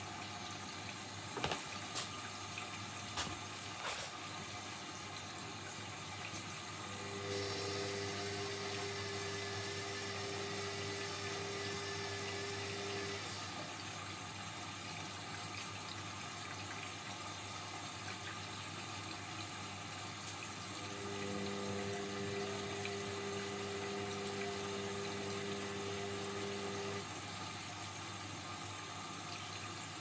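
Indesit front-loading washing machine running, with water sloshing in the drum. A motor tone comes in twice for about six seconds at a time, as the drum turns and then rests. There are a few sharp clicks in the first few seconds.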